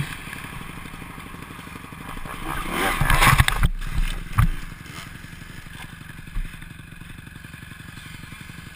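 Motocross dirt bike engine revving up and getting louder, then a crash with a sudden break in the sound and a few sharp knocks about four seconds in. After that a dirt bike engine runs steadily at low revs.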